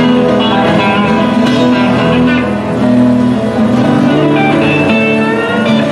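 Live band playing: electric guitar and strummed acoustic guitar over a steady bass line.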